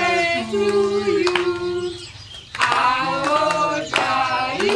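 A group of women and children singing a birthday song together, unaccompanied, with held notes and a short break about two seconds in. A few hand claps sound between the phrases.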